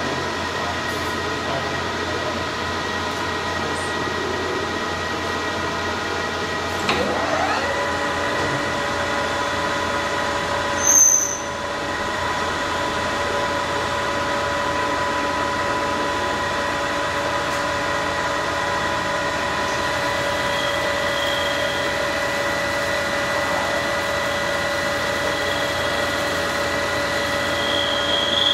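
Manual engine lathe running with a steady gear whine. About seven seconds in the whine rises as the spindle comes up to speed, with a brief sharp noise about eleven seconds in. In the last several seconds a thin high squeal comes and goes as the tool cuts the steel under hand-sprayed cutting fluid.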